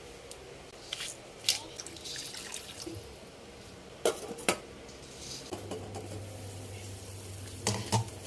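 Kitchen sounds: a handful of sharp clinks and knocks from dishes and utensils being handled, with a low steady hum starting about halfway through.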